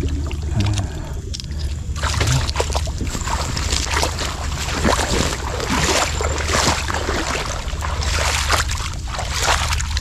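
Shallow water splashing and sloshing as someone wades through it, irregular from about two seconds in, over a steady low rumble.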